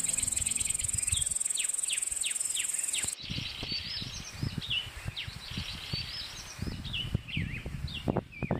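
Small songbirds singing in quick, repeated falling chirps, over a steady high insect buzz that cuts off suddenly about three seconds in. Some irregular low rumbling runs underneath.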